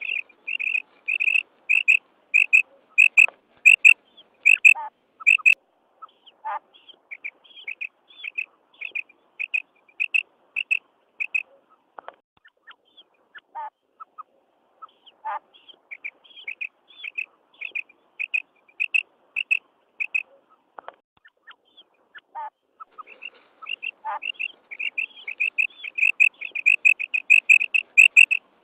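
Female common quail giving its 'kirak' call: runs of short, high, quick notes, with a few lower notes mixed in. The calls thin out through the middle and come fast and close together again near the end.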